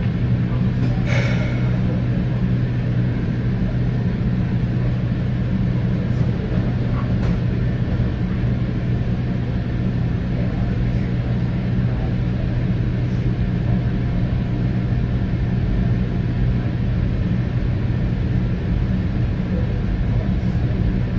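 Steady low rumble and hum inside a Metra commuter train coach as the train rolls slowly along, with one brief sharp sound about a second in.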